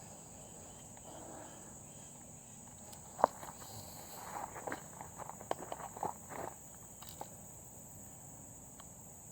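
Faint clicks, knocks and rustling of someone moving and handling gear, clustered between about three and seven seconds in. A steady high-pitched whine runs underneath.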